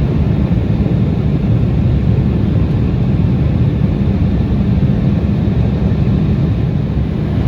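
Steady low rumble of engine and airflow noise inside the passenger cabin of an Embraer 175 jet airliner.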